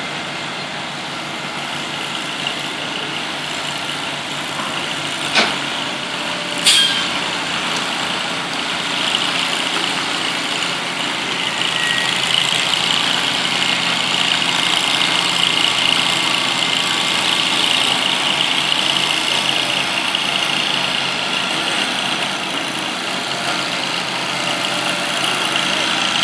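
Heavy truck engine running steadily as a long multi-axle oversize-load rig maneuvers slowly, with two sharp knocks about five and seven seconds in.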